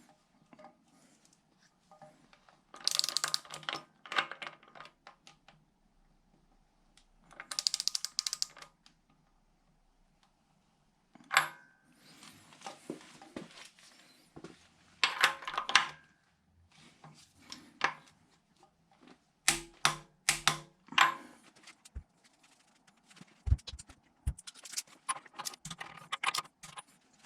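Ratchet and socket work on engine fittings: several bursts of rapid ratchet clicking as a fitting is tightened, with metal tools and parts clinking and knocking in between.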